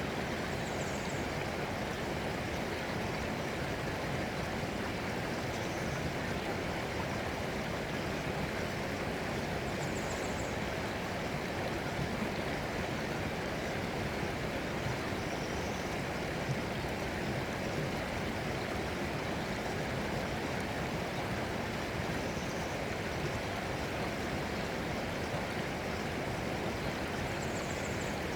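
Flowing stream water, a steady, unbroken rush. A few faint, short high chirps come and go over it.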